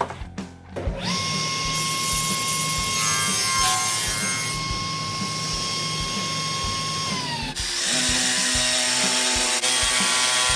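Table saw running with a steady whine while ripping plywood, then spinning down with a falling pitch about seven seconds in. A jigsaw then takes over, buzzing steadily as it cuts through the corner of a plywood shelf.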